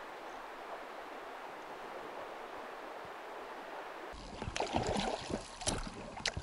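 A soft, steady rush of flowing river water. About four seconds in, an inflatable boat is being rowed: the oars splash and knock in a quick, uneven series of louder strokes.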